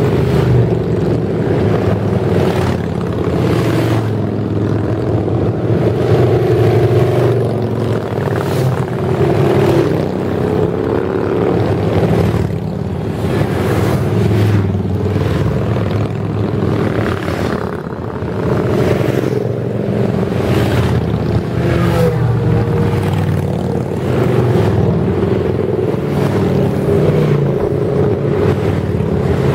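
A long line of cruiser and touring motorcycles riding past one after another at a steady, moderate pace, their engines loud and continuous, swelling and fading as each bike passes close by.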